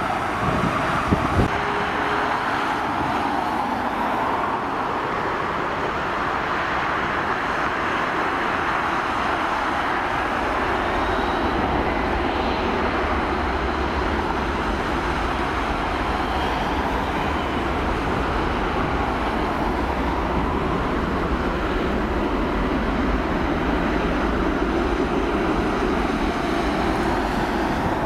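Boeing 767-300ER's twin turbofan engines running as the airliner lines up and begins its takeoff roll: a steady jet roar, with a deep low rumble building from about ten seconds in as the engines spool up. Two short knocks about a second in.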